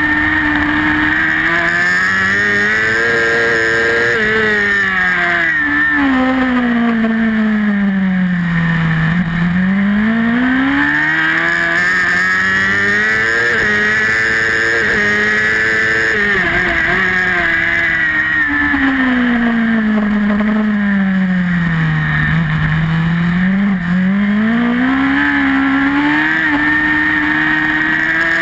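Superbike engine heard onboard at racing speed over a constant rush of wind: the engine note falls in steps twice as the bike slows for corners, and climbs again each time as it accelerates out through the gears.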